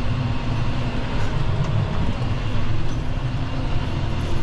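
John Deere tractor's diesel engine running steadily under load as it pulls a scarifier through the soil, heard from inside the cab as a low, even drone.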